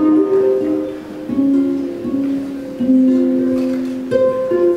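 Lyon and Healy concert grand pedal harp being plucked: a slow melodic line of single notes that ring on and overlap, a new note every half second to second.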